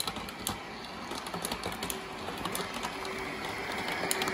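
O-gauge three-rail model of a Long Island Rail Road M7 electric train running along its track: a small electric motor whirring, with a scattering of sharp clicks from the wheels on the rails, growing louder as it approaches.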